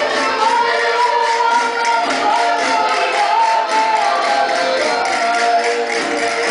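Live Portuguese folk music: a group singing together over accordions, with a steady beat.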